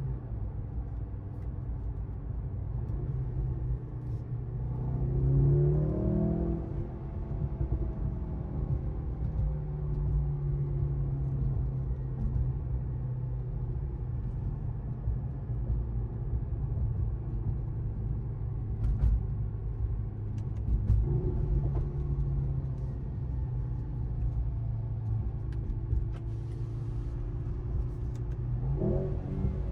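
2023 Mercedes-AMG C43's turbocharged 2.0-litre four-cylinder engine running under way with road rumble. Its pitch climbs on a brief acceleration about five seconds in and then drops back, swells again around twenty seconds in, and climbs once more near the end.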